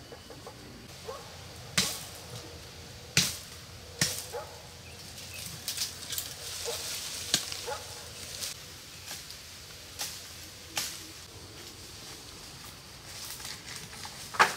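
A series of about ten irregular, sharp knocks of a hand tool striking wood, spaced a second or more apart, with the loudest one near the end.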